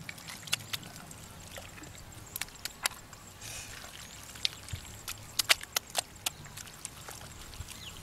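Bare hands working wet mud and shallow muddy water: scattered wet squelches and sharp little splats, coming thickest about five to six seconds in.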